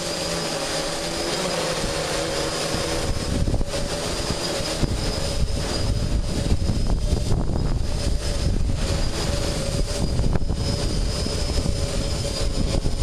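DJI F550 hexacopter's six electric motors and propellers whining steadily in flight, with gusty wind rumbling on the microphone from about three seconds in.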